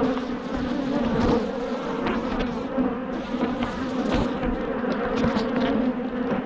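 Honeybees buzzing around an open hive in a steady, dense hum, from a colony the beekeeper calls aggressive. A few light knocks sound now and then over the hum.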